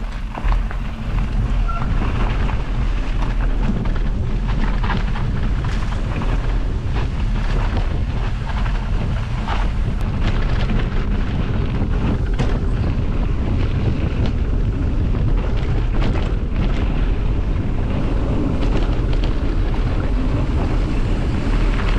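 Wind buffeting the microphone of a camera on a moving mountain bike, over the rumble of tyres on a dirt road and frequent small rattles and knocks from the bike going over bumps.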